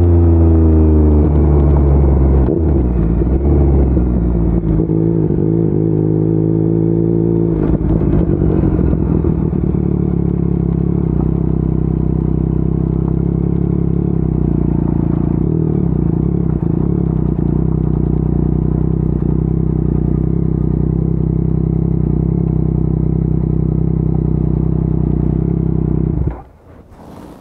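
Yamaha MT-09 SP's three-cylinder engine coming off the throttle, its note falling over the first couple of seconds, then settling to a steady idle. The engine sound stops suddenly near the end.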